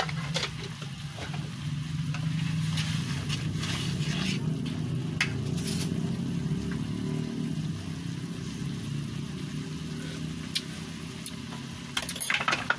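Scattered clinks of a utensil against a cooking pan over a steady low rumble, with a quick run of clattering near the end as ingredients are added and stirred.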